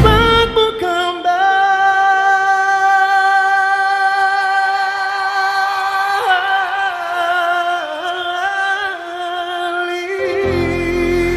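Live pop music: a singer holds a long, slightly wavering note over sparse accompaniment. The full band with bass comes back in about ten seconds in.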